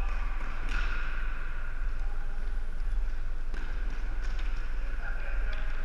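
Floor hockey play in a gymnasium: a few sharp clacks of plastic sticks and ball, with a steady low hum underneath.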